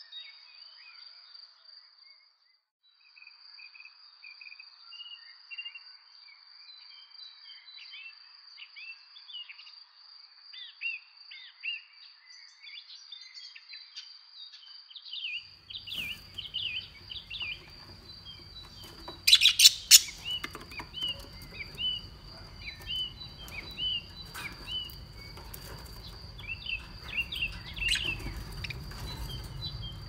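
Birds chirping over a steady high tone. From about halfway, caged budgerigars chatter in quick chirps over a low hum, with a brief loud burst of noise about two-thirds of the way through.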